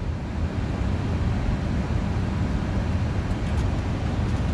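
Flight-deck noise of a Boeing 747-400 on short final approach: a steady low rumble of airflow and engines.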